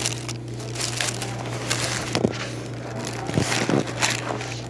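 Paper food wrapper crinkling and rustling as it is handled, in irregular crackles, over a steady low hum.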